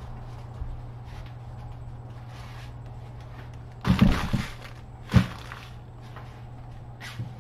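Groceries set down on a bamboo cutting board: a quick cluster of knocks with a rustle of the paper-wrapped bag about four seconds in, then one sharp knock about a second later, over a steady low hum.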